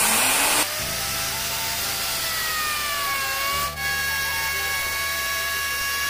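Handheld electric wood router fitted with a chamfer bit, starting with a brief loud rush and a rising whine, then running steadily with a high whine as it cuts a chamfer along a timber edge. The whine sags slightly under the cut and dips briefly a little past halfway.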